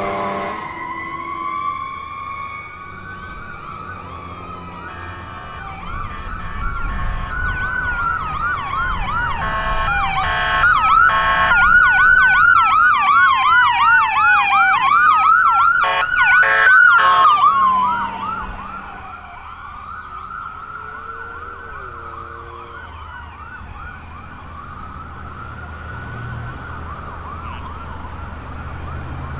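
Emergency vehicle sirens: a slow wailing siren from the departing fire engine fades, then the approaching ambulance's siren grows loud with rapid up-and-down yelp sweeps and a few short horn blasts about ten and seventeen seconds in, before dropping back to a quieter fast warble.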